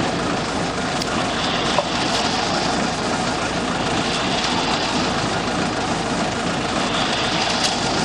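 The diesel engine of a self-loading concrete mixer running steadily, with a short knock just under two seconds in.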